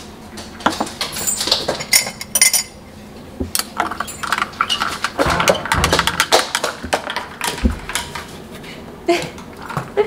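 A spoon stirring iced coffee in a glass, clinking again and again against the glass and the ice cubes, with a few ringing clinks early in the stretch.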